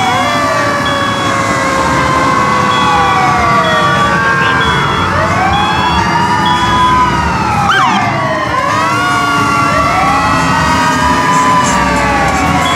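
Several fire truck sirens wailing at once, their pitches rising and falling out of step with one another, over a low rumble. A short high tone repeats about once a second through the wailing.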